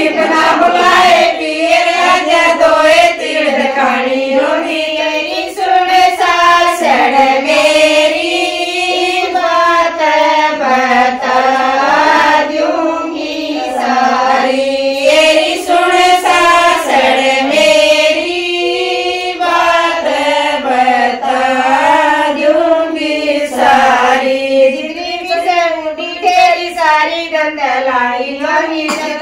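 Group of women singing a Haryanvi folk song (geet) together in a wavering melody, with hand claps.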